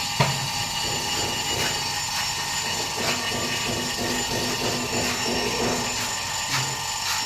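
Refrigeration vacuum pump running steadily while evacuating a window air conditioner, with a sharp click just after the start and a few fainter taps.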